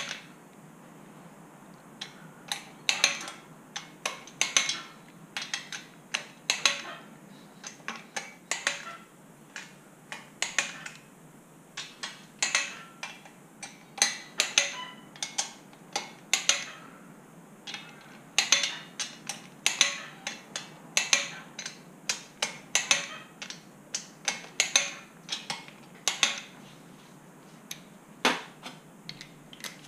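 Click-type torque wrench clicking on the camshaft tower nuts of an air-cooled Porsche 911 cylinder head as each nut is rechecked at its set torque: short, sharp metallic clicks in pairs and small clusters about every second, with the socket clinking onto the studs. Near the end the clicks thin out to a single one.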